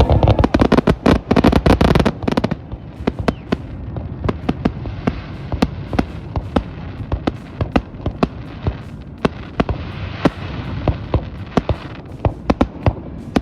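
Aerial fireworks exploding: a dense volley of rapid loud bangs for about the first two seconds, then a long run of scattered sharp pops and crackles.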